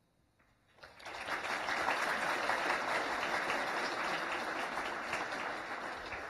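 Audience applauding, starting about a second in after a brief hush and tapering off near the end.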